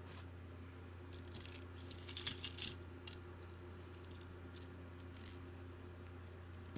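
Metal jewelry clinking and jingling as pieces are handled and picked through: a busy run of jingles about a second in lasting about a second and a half, then a sharper click and a few scattered light clicks.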